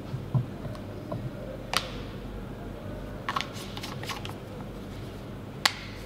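Plastic handling clicks as a funnel is lifted off a plastic soap bottle and a pump dispenser top is fitted and screwed on: a soft knock, a sharp click, a quick run of small clicks, then one more sharp click near the end.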